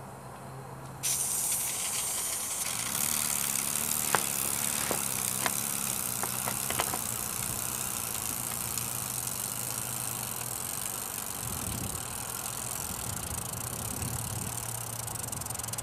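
Small model steam locomotive with a double-acting oscillating cylinder running along the track: a steady steam hiss that starts suddenly about a second in, with a few light clicks and rattles.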